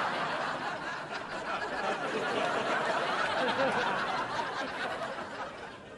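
Sitcom studio audience laughing, one long wave of laughter that dies away near the end.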